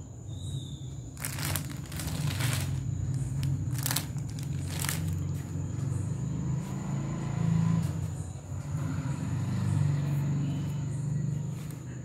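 Silk cotton saree cloth rustling and crinkling as it is handled and spread out, in a few sharp bursts in the first five seconds, over a continuous low rumble.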